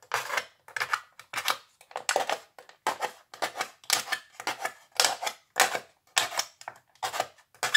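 Metal skewer punching holes in a thin aluminium foil takeaway tray, a short crinkling crackle with each stab, about twice a second, as drainage holes go into its base.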